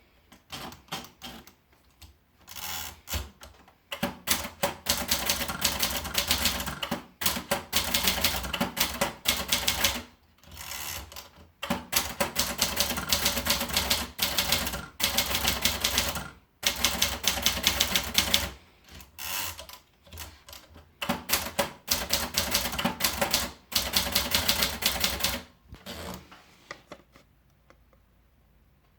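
Adler Tippa manual portable typewriter being typed on: runs of rapid keystrokes with short pauses between them, stopping near the end.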